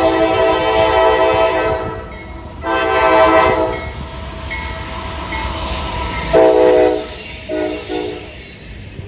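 Diesel freight locomotive's air horn sounding a chord in a crossing-style series: a long blast that ends about two seconds in, a second shorter one right after, then two short blasts near the end, over the rumble of a passing train.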